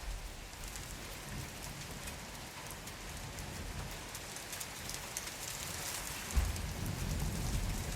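Steady rain falling, with many separate drop hits heard through it. About six seconds in, a low rumble of thunder begins and carries on.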